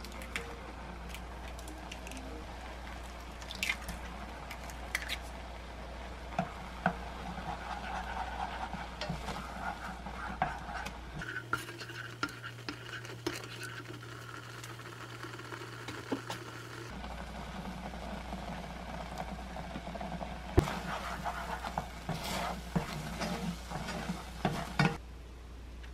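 A spatula stirring and scraping thick oatmeal-and-egg porridge in a saucepan, with scattered sharp knocks against the pot over a steady low hum.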